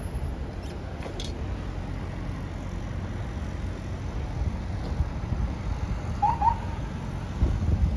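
Steady low rumble of city street traffic and idling vehicle engines. Two short high chirps come about six seconds in.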